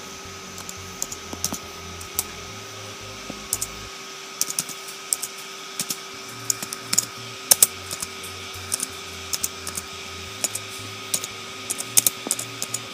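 Typing on a white MacBook's laptop keyboard: irregular key clicks, some in quick runs and some spaced out, as a short line of text is pecked in. A faint steady hum sits underneath.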